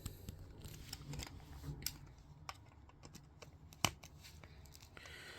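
A few faint plastic clicks from a FireAngel SB1-R smoke alarm being handled as its test button is pressed, the sharpest about four seconds in. The alarm's siren does not sound: its piezo sounder is failing.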